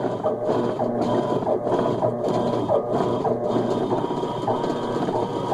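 Electrolux LT12 top-loading washing machine's motor running in agitation with its capacitor wired in, driving the agitator back and forth in a steady rhythm broken by short pauses about every 0.6 s. With the capacitor connected the machine agitates normally instead of only humming.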